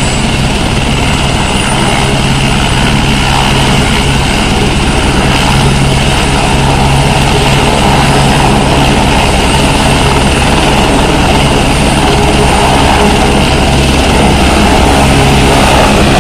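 Single-engine Airbus AS350 Écureuil-type turbine helicopter running with its main rotor turning at power, a steady low rotor beat under a dense turbine noise. The sound grows slightly louder as it lifts off the ground in the second half.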